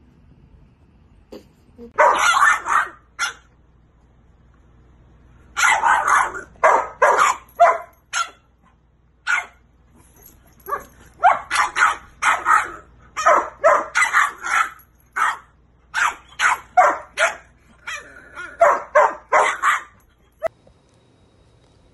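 Dog play-barking in quick runs of short, sharp barks, starting about two seconds in and stopping shortly before the end.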